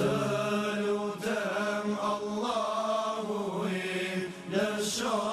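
A devotional Islamic song (nasheed) sung in long, drawn-out lines whose pitch bends and wavers from note to note.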